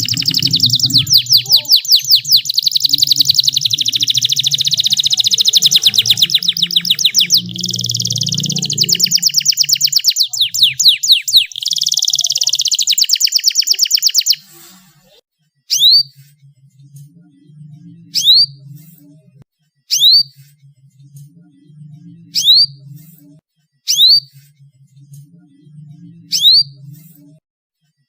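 Domestic canary singing long, very fast rolling trills for about the first half. After that come single short upward-sweeping chirps, one about every two seconds, over a low, pulsing background beat.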